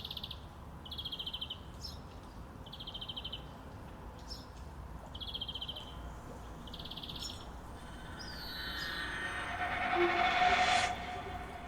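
Short, buzzy bird chirps repeat about every two seconds over faint background ambience. From about two-thirds of the way in, a rushing swell rises and then cuts off shortly before the end.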